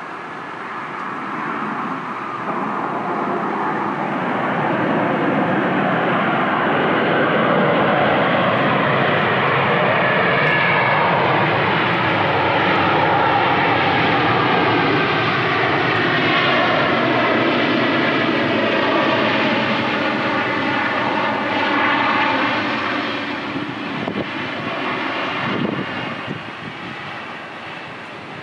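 Jet engines of an Airbus A320-family airliner on its landing roll, heard from beside the runway. The engine noise swells to a loud rush a few seconds in, holds with a slowly sweeping whoosh, then dies away over the last few seconds as the jet slows.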